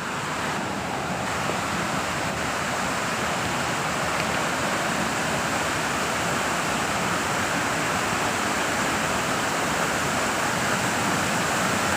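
Waterfall rushing: a steady, even roar of falling water that swells slightly in the first second and then holds level.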